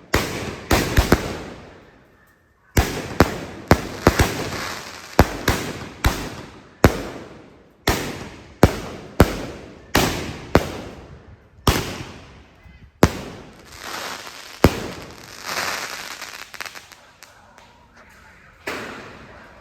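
A 16-shot consumer fireworks cake firing: a rapid series of sharp bangs, one or two a second, each trailing off in a fading hiss. There is a brief pause about two seconds in, and near the end the shots turn into a quieter, denser spell of crackle.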